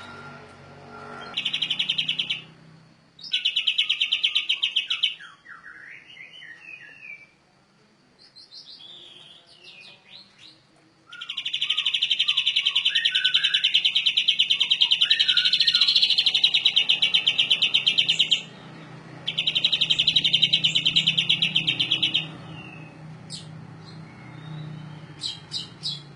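Canary singing its long rolling song ('ngerol'): fast, even, high trills, four of them, the longest running about seven seconds, with short warbled gliding notes between the rolls.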